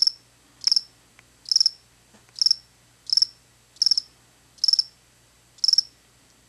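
Cricket chirping: about eight short, high-pitched chirps a little under a second apart, each made of a few quick pulses, stopping near the end.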